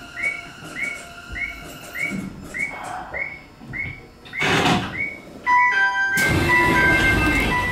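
Subway door chime: short rising electronic beeps repeating about twice a second. A rush of noise comes about four and a half seconds in, and from about five and a half seconds in a louder melody of several steady tones plays over noise.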